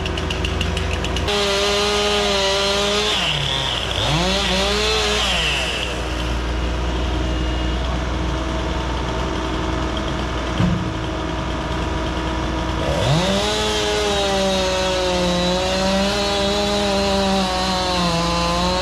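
Chainsaw running at high revs and cutting wood. Its pitch sags and recovers as it bites in, in two spells: one starting about a second in, and another from about thirteen seconds on. A steady low engine hum runs underneath.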